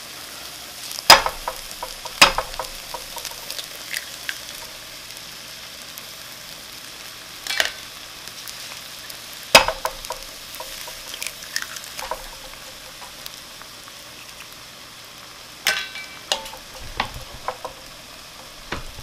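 Onions and shrimp sizzling steadily in a nonstick frying pan as eggs are cracked into it, with a few sharp knocks from the eggs being cracked. Near the end a wooden spoon stirs and taps in the pan.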